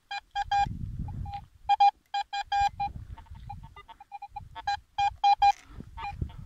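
Metal detector sounding a target with repeated short, same-pitched beeps in quick runs. Between the runs come scraping and thuds as a shovel digs into soft soil.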